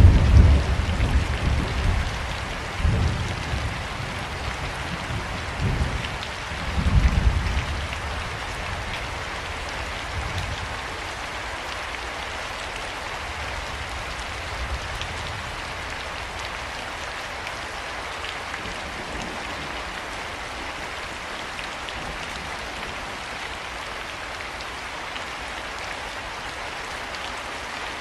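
Steady rain falling during a thunderstorm. Thunder cracks loudly right at the start and rolls on in several deep rumbles over the first ten seconds or so. After that only the even hiss of rain is left.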